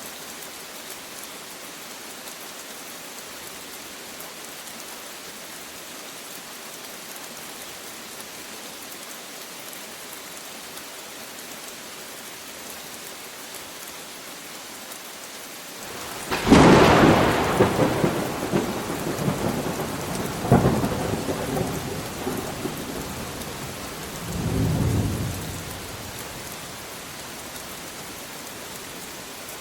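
Steady rain falling, with a loud thunderclap a little over halfway through that rolls on in two more rumbles before dying away.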